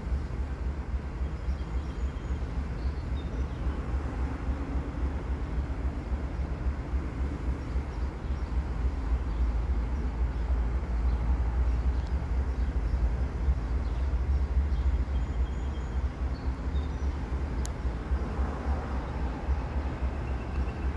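Freight train's cars rolling slowly along the track: a low, steady rumble that swells a little midway.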